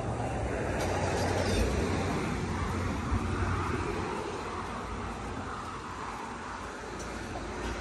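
Road traffic: a passing car swells to its loudest about one to two seconds in and fades, over a steady background of traffic noise.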